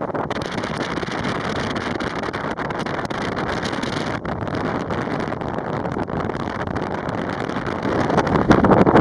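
Jet airliner's engines running at takeoff power, a steady rushing noise that grows louder near the end, with strong wind buffeting the microphone.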